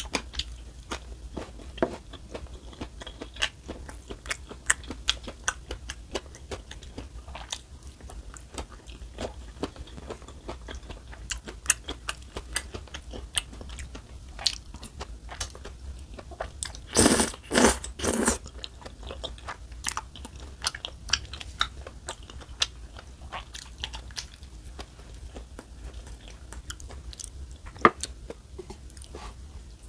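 A person eating rose tteokbokki and noodles: steady wet chewing with many small clicks and smacks, and three loud slurps of noodles in quick succession about two-thirds of the way through.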